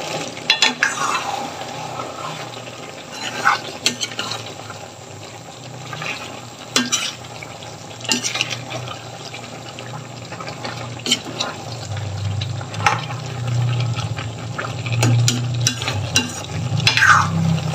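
A spoon stirring vegetables in a pan, with irregular scrapes and knocks against the pan, a longer scrape near the end, and the vegetables sizzling in their sauce, over a low steady hum.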